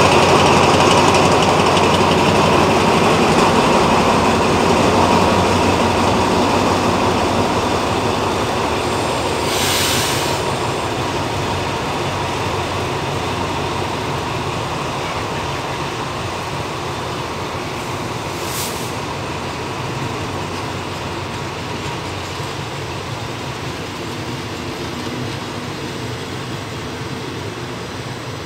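Passenger coaches of a departing diesel-hauled train rolling past on the rails, with the locomotive's diesel engine fading as it pulls away; the sound gradually gets quieter. Two brief high hissing sounds come about ten and eighteen seconds in.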